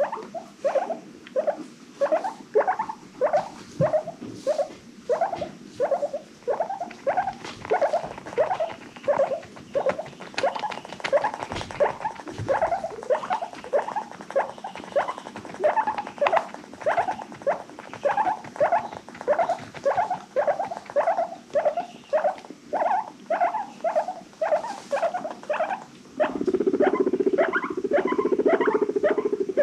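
Guinea pigs wheeking: short, rising squeaky calls repeated about twice a second. Near the end a louder, steady low sound joins the calls.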